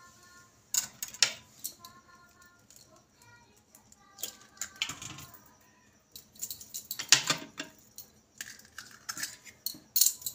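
Eggs being cracked with a knife over a stainless steel bowl: a series of sharp taps and clinks of the knife against the shells and the metal bowl.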